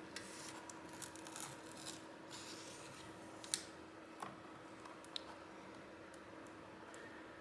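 Faint scraping and rubbing of a plastic guitar pick worked along the edge of an iPad display, lifting the LCD away from its adhesive, with a few light clicks around the middle. A thin steady hum runs underneath.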